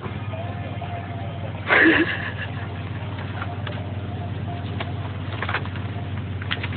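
Car engine running with a steady low hum, and a short loud sound about two seconds in.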